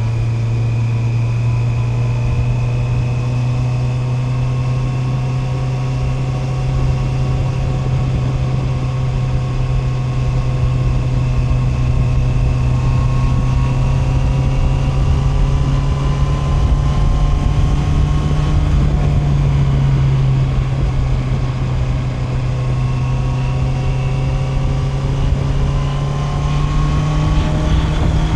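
Honda CB650R's inline-four engine, fitted with a DNA air filter, pulling steadily in one gear with its pitch climbing slowly, then rising a little faster near the end, over wind rumble on the microphone.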